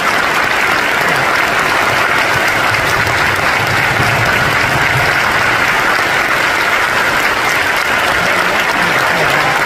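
A large concert audience applauding steadily: dense, even clapping that does not let up.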